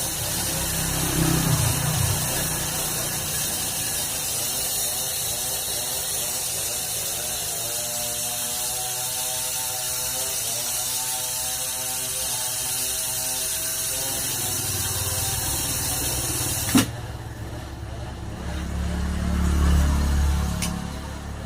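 Gas brazing torch hissing steadily while the refrigerator's filter drier is brazed back into the pipework. About 17 seconds in it cuts off with a sharp click, leaving a few low knocks of handling.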